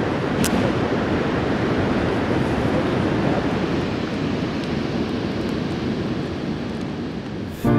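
Steady wind on the microphone with ocean surf behind it. About half a second in comes a brief sharp scratch as a match is struck to light a campfire.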